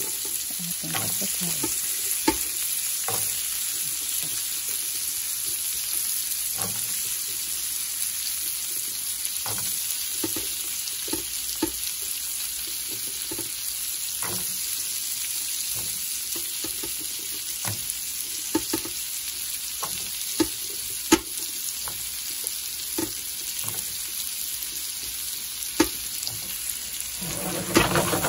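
Carrot and potato pieces sizzling steadily in hot oil in a frying pan, with scattered sharp clicks and knocks as pieces go in and hit the pan. A busier, louder clatter of stirring comes near the end.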